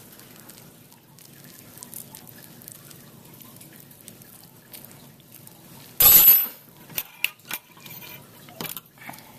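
Dissection handling noises: gloved hands and a metal probe working wet, preserved tissue in a cat's neck, with small wet ticks. About six seconds in there is a brief loud scraping burst, then a few sharp clicks.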